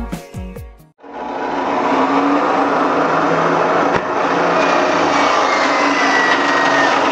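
DeWalt miter saw running and cutting through a sneaker and flannel cloth: a loud, dense, steady mechanical noise with a faint whine that glides down in pitch over the last few seconds. It cuts off suddenly at the end.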